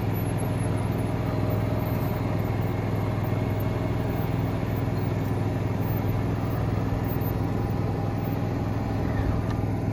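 RV generator running steadily, a constant low engine hum with no change in speed.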